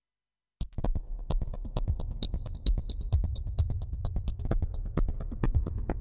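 Homemade modular synthesizer wall playing an electronic sequence: rapid, clicky percussive hits over a deep bass pulse, with a few short high bleeps. It cuts in suddenly out of dead silence about half a second in.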